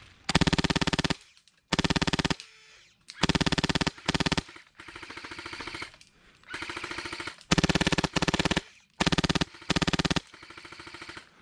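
Airsoft guns firing on full auto in short, rapid bursts. There are about eight loud, close bursts of less than a second each, and a quieter, longer stretch of fire in the middle.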